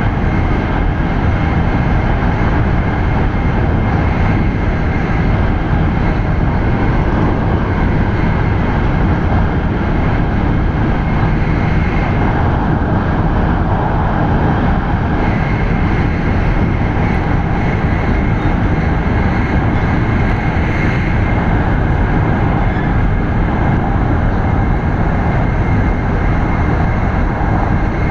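Steady running noise heard inside a Shinkansen carriage at speed: a dense, even rumble with a faint high steady tone over it.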